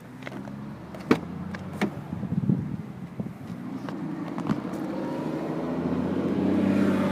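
A few sharp knocks, then the noise of a motor vehicle swelling steadily over several seconds, loudest near the end and easing off.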